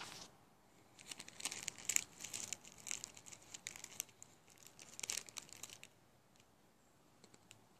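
Clear plastic snack pouch crinkling in the hand as the worms are handled, an irregular run of crackles that stops about six seconds in.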